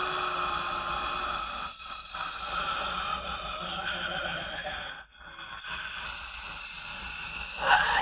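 A man breathing all his air out in a long, steady exhale, then near the end a sudden loud strained noise from his throat as he presses on it with his hand.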